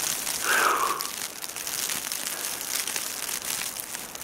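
Footsteps crunching through deep snow, a steady crackling hiss, with a short breathy sound about half a second in.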